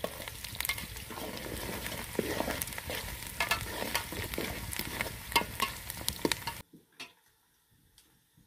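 Food sizzling and frying in a metal pan over a wood fire, with many sharp clicks and scrapes as it is stirred. The sound cuts off suddenly about six and a half seconds in, leaving only a few faint clicks.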